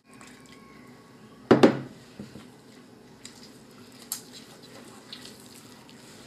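Hands kneading wheat-flour dough on a table, with one loud thump about a second and a half in and a few lighter knocks after it.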